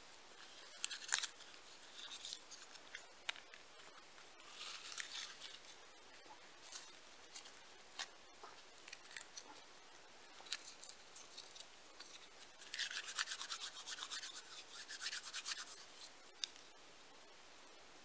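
Quiet handling noises: scattered light clicks and short rustles, then a quick run of rapid scraping strokes for about three seconds in the second half.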